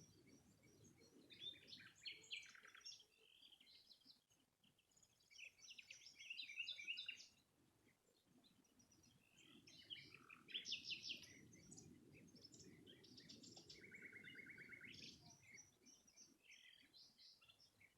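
Small birds chirping and twittering in quick high trills, heard faintly, over a low rushing background noise that swells and fades.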